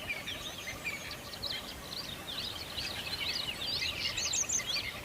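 Many small birds chirping over one another, a dense chorus of short high-pitched chirps.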